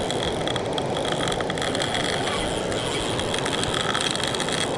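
Spinning reel's drag clicking and buzzing as a hooked wels catfish pulls line off against it, a rapid run of clicks in the first half and a steady high whine throughout.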